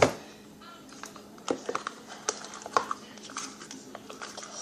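Scattered clicks and taps of a blunt knife knocking against a container while shampoo-and-salt slime is stirred, the loudest click right at the start and a handful more a second or two later.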